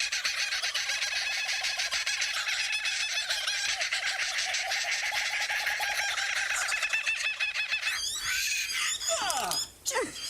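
A flock of birds calling in a dense, continuous chorus that breaks off about eight seconds in, followed by a few separate calls gliding in pitch near the end.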